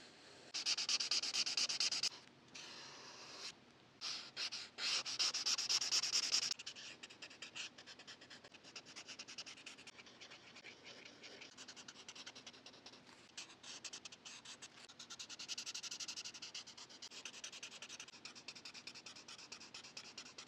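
Marker tip rubbing and scratching across paper in quick, repeated colouring strokes. The strokes are loudest in two spells in the first six or so seconds, then go on softer and steadier.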